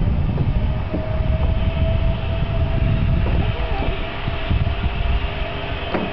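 Zipline trolley pulleys running along the steel cable, a steady two-toned whine over a low rumble.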